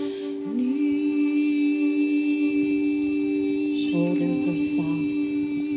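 Meditative live music: held sung or hummed vocal tones, one voice sliding up into the note about half a second in, over a steady high tone. From about four seconds in, short low notes and brief high jingling accents join.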